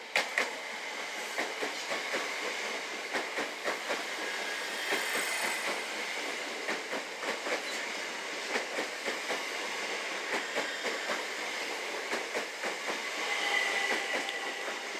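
Greater Anglia Class 379 electric multiple unit running past at close range: a steady rumble of the passing coaches with irregular sharp clicks of wheels over rail joints. A high steady tone grows louder near the end as the last coach goes by.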